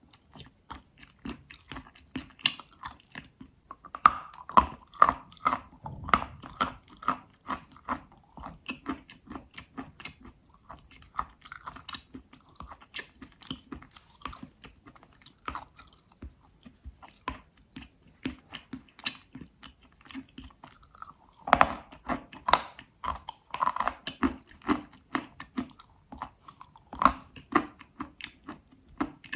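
Astana chalk being bitten and chewed: a close, continuous run of small crisp crunches, with louder bursts of biting about four to six seconds in and again just past twenty seconds.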